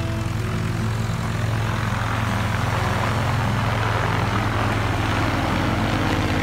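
Small single-engine propeller plane flying low overhead, its engine and propeller drone growing louder as it approaches.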